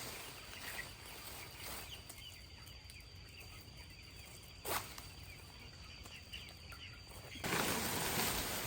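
Faint farmyard background with chickens clucking and a steady high-pitched tone, a brief falling chirp about halfway through; the background turns louder and noisier near the end.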